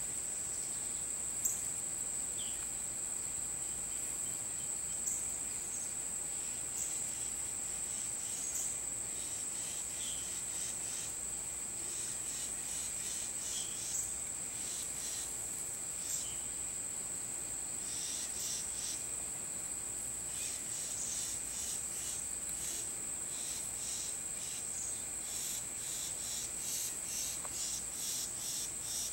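Insects singing in a steady high-pitched drone, with short chirps over it that come more often near the end.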